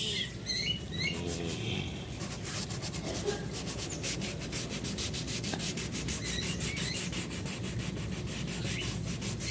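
Sandpaper rubbed by hand back and forth over the unpainted textured ABS plastic body panel of a scooter, in quick, even strokes that grow steadier about two seconds in. It is scraping off the white, faded crust on the old plastic.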